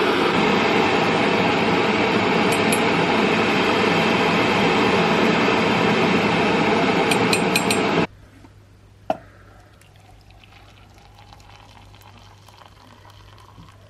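Loud, steady rushing noise that cuts off suddenly about eight seconds in. About a second later there is a single sharp clink that rings briefly, like a cup or spoon being knocked.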